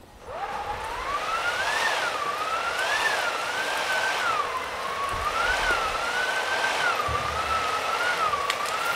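Howling wind sound effect: a single whistling tone that climbs in the first half-second, then wavers slowly up and down over a hiss, like wind gusting.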